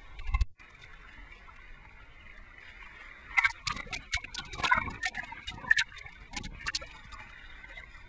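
Seawater sloshing and lapping against a camera held right at the surface, with sharp clicks and slaps as small waves hit it. A low steady wash for the first few seconds, growing busier with frequent splashy clicks from about three seconds in.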